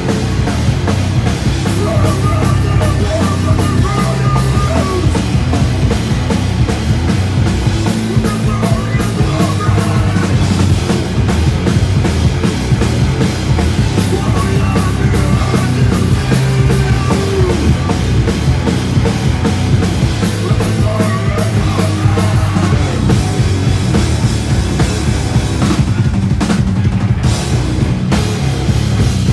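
Live rock band playing an instrumental passage, with a drum kit driving it and held melodic notes over a heavy low end.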